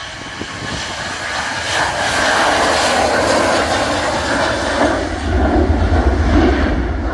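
Ryanair Boeing 737's jet engines at takeoff power, swelling as the jet accelerates along a wet runway, with a deep rumble building from about five seconds in as it rotates and lifts off.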